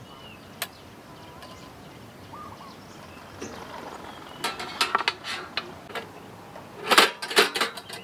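Hard objects being handled and knocked together, clattering and clinking. A run of scattered knocks comes about four and a half seconds in, and a louder, denser burst about seven seconds in.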